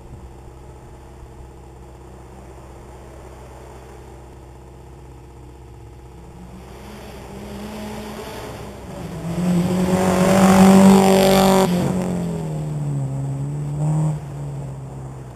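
Rally car on a gravel stage approaching at speed, growing louder to a close pass about ten to eleven seconds in, where its engine note drops sharply in pitch. It then pulls away with a brief rev about fourteen seconds in as the sound fades.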